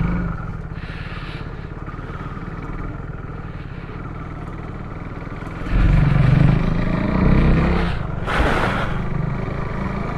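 KTM RC 390 single-cylinder motorcycle engine riding off at low speed, its note growing clearly louder about six seconds in as it accelerates. A short rush of noise comes a couple of seconds before the end.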